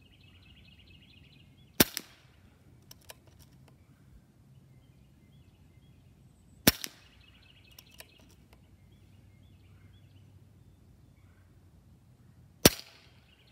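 Three shots from a Diana Outlaw .22 calibre PCP air rifle, about five seconds apart. Each is a sharp crack followed a split second later by a fainter second report. A few light clicks follow the first two shots.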